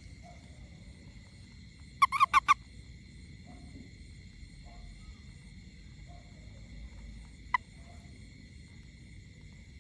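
Frog calls: four loud, quick honking calls about two seconds in and one sharp short call near the end, with faint low croaks scattered between, over a steady high-pitched night chorus.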